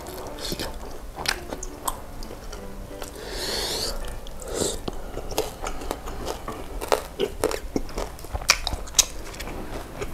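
Close-miked chewing of chewy tapioca balls (baso aci): wet smacking and clicking mouth sounds at an irregular pace, with one longer, airy sound a little over three seconds in. Quiet background music underneath.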